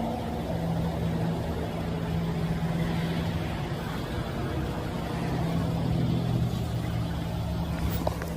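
A car engine running steadily, a low hum with road or traffic noise, and a brief click near the end.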